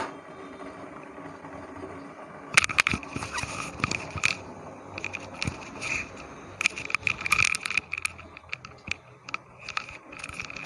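Sugar syrup boiling hard on a high flame with rasgulla balls cooking in it: irregular crackling pops of bursting bubbles that start about two and a half seconds in.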